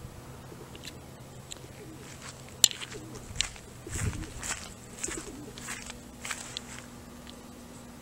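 Faint bird calls over a faint steady low hum, with scattered clicks and a thump about four seconds in.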